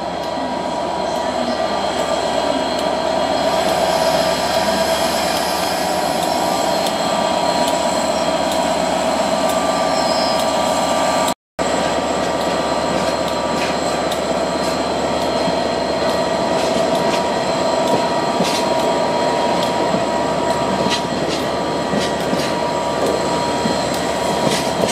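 Freight train of rail tank wagons rolling past at close range: steady running noise with a sustained wheel squeal and the wheels clicking over rail joints. The sound drops out briefly about halfway through.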